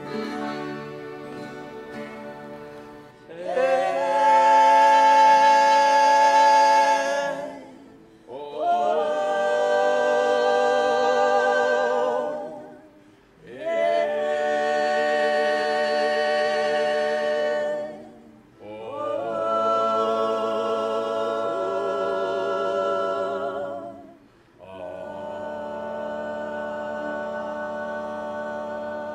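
Several voices singing long held notes in harmony without clear words, in five phrases of about four to five seconds each that swell in and fade out. The first three seconds are a softer held chord.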